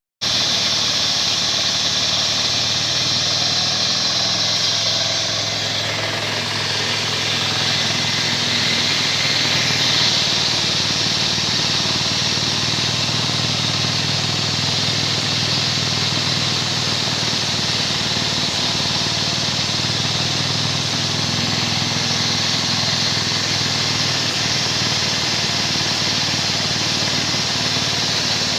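Diesel engine of a concrete groove-cutting machine running steadily, with a steady high hiss over its low hum.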